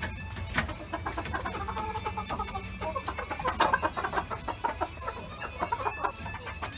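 Chickens clucking: a string of short clucks that grows busiest a little past the middle.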